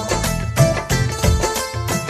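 Instrumental passage of an Urdu patriotic song: a steady drumbeat under a melody on pitched instruments, with no singing.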